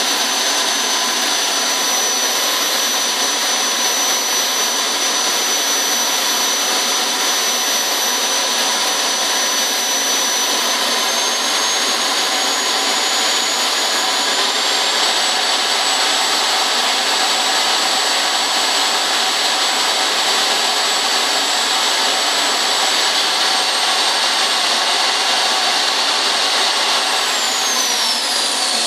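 RC model jet turbine engine running at high speed: a loud, steady rush with a high whine that climbs in pitch in two steps, then drops steeply near the end as the turbine spools down.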